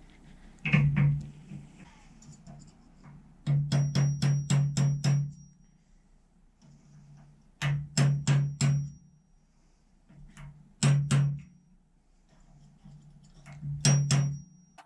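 Hammer blows on metal in short runs of quick strikes, about four a second, each with a thud and a brief high ring. This is the freezer-chilled shaft and bearings being knocked home into the blowtorch-heated live-centre body.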